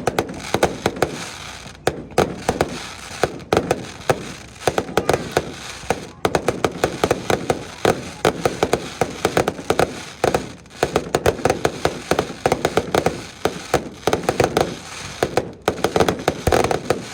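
Fireworks going off in a dense, continuous barrage of bangs and crackles, many reports a second, with brief lulls every few seconds; it stops near the end.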